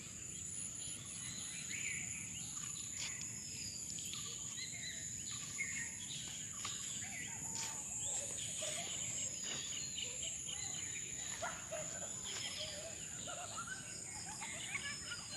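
Outdoor rural ambience: many birds chirping and calling over a steady high-pitched drone of insects.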